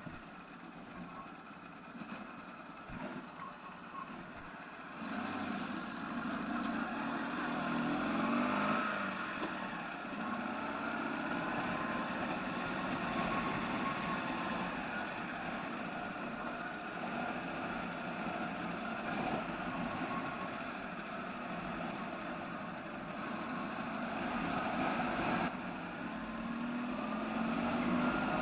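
Ural flat-twin engine on a sidecar motorcycle with a 'bomba' muffler, running on a test ride: quieter for the first few seconds, then louder, with the pitch rising as it accelerates about eight seconds in and again near the end. The ignition timing has just been advanced slightly to get more pull at high revs.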